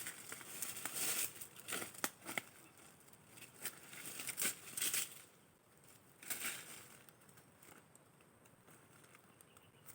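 Irregular crinkling and rustling handling noises in quick bursts, which thin out after about six or seven seconds to a faint background.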